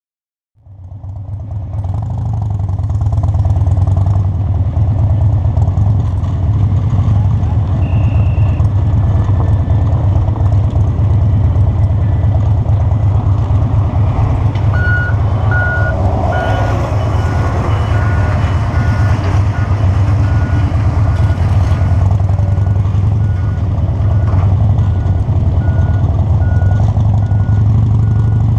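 A vehicle's steady engine and road rumble. From about halfway, a short high electronic beep repeats at an even pace.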